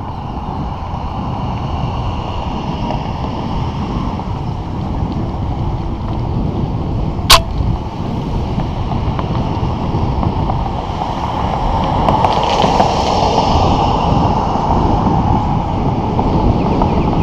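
Steady wind noise buffeting the microphone of a camera moving fast along a sidewalk, growing somewhat louder in the second half, with one sharp knock about seven seconds in.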